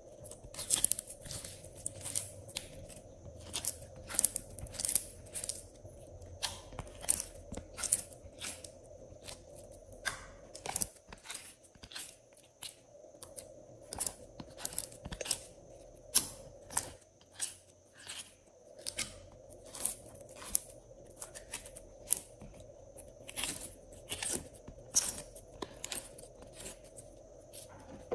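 Glossy slime being scooped by hand out of a plastic container and pressed into a tray, giving irregular sticky clicks and pops, a few a second.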